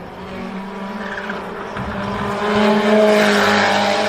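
A recorded race-car sound, engine and tyre squeal, growing louder about two seconds in.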